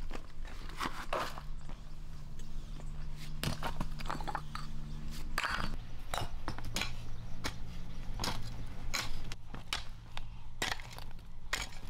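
A long-handled hoe chopping and scraping through loose, clumpy soil, with footsteps on it: an irregular string of crunching strikes and scrapes.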